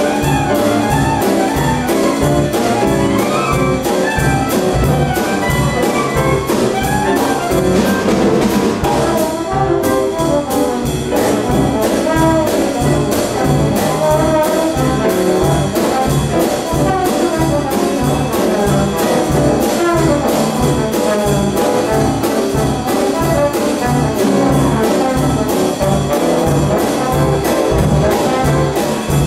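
Dixieland jazz band playing at a steady beat, with clarinet and trombone over the rhythm section, and a short dip in the ensemble sound about ten seconds in.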